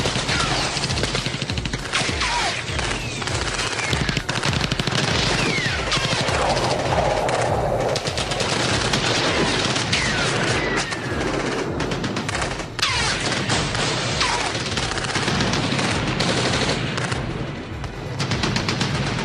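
Battle sound effects: continuous rapid machine-gun fire and gunshots, with short falling whistles cutting through now and then.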